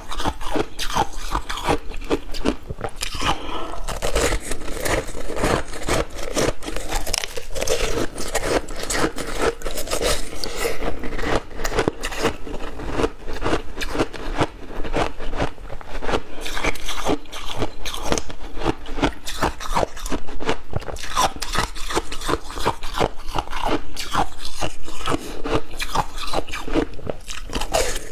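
Close-miked ice eating: a block of cola-dipped ice is bitten and chewed, making a dense, unbroken run of crisp crunches and cracks between the teeth.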